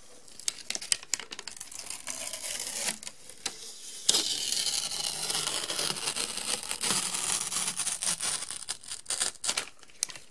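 Paper and plastic packaging being unwrapped by hand from around a clear acrylic lamp panel: a run of quick crinkles and crackles, with a louder, steady rustle from about four seconds in that lasts about four seconds.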